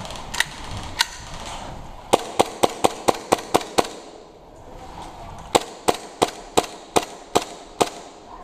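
Gas-blowback airsoft Glock pistol firing. There are two single shots, then two quick strings of about seven or eight shots each at roughly three to four shots a second, and a last shot at the end.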